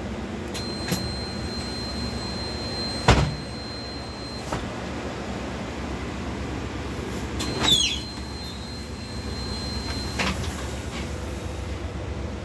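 Pneumatic doors of an Iveco Urbanway 18 articulated natural-gas bus working over the steady low hum of the idling bus. A high steady warning tone sounds twice, for a few seconds each time. There is a sharp thump about three seconds in, a short hiss of air near the middle and a lighter knock about ten seconds in.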